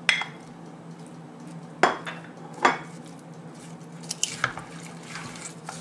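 Wooden spoon knocking and scraping against a glass dish as cream cheese is pushed off it into a crock pot: three sharp clinks in the first three seconds, then softer knocks and stirring among the ingredients near the end.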